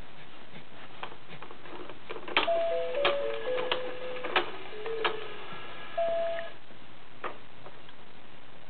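A short electronic tune from a baby bouncer's toy-bar music unit: about eight plain, plinking notes stepping up and down over some four seconds, each with a sharp click at its start. Scattered light clicks and taps come before and after.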